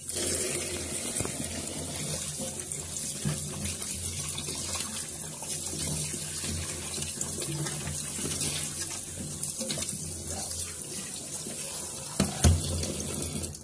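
Tap water running steadily onto raw chicken pieces in a metal basin as they are rinsed and turned by hand, with a couple of short knocks about twelve seconds in.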